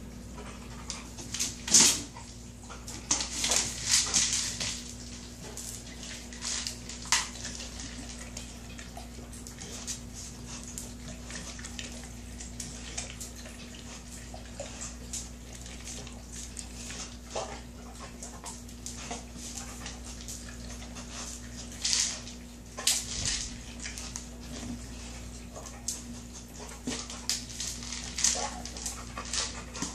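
A Kong Wobbler, a hard plastic treat-dispensing toy, knocked about on a hard floor by a dog's nose: irregular bursts of rattling and clattering as kibble shakes inside it and spills out. The loudest clatters come about two seconds in, around four seconds and around twenty-two seconds.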